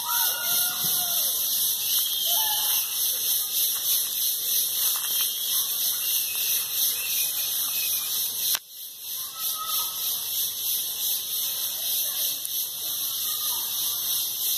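Steady high-pitched chorus of forest insects, with a few short whistled bird calls over it. The chorus dips briefly just past the middle.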